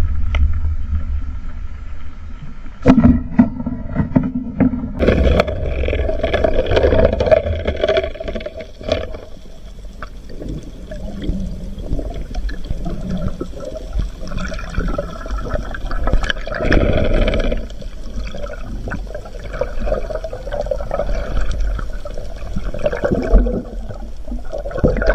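Water gurgling and sloshing around an underwater camera during a night spearfishing dive, with scattered sharp clicks and knocks.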